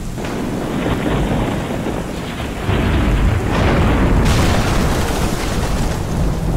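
Cinematic logo-reveal sound effect: deep rumbling booms under a thunderstorm-like rain hiss. It swells louder about two and a half seconds in and turns brighter and hissier past four seconds.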